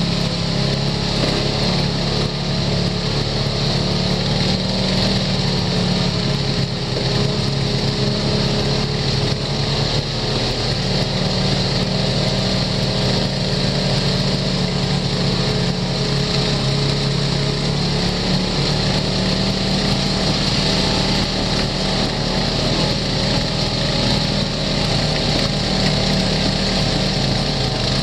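Side-by-side UTV's engine running steadily while driving along a rough dirt trail, heard from the driver's seat of the open cab.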